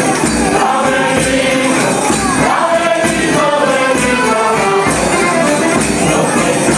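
A rondalla ensemble singing in chorus to its own instrumental accompaniment, with a drum keeping the beat and jingling percussion.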